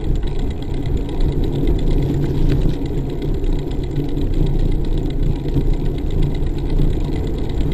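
Wind buffeting the microphone of a camera mounted on a moving bicycle, together with tyre rumble on asphalt: a steady low rumble with faint scattered ticks.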